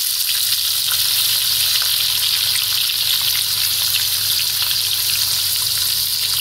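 Sliced red onions sizzling in hot mustard oil in a pan, just added, with a steady high hiss and faint scattered crackles.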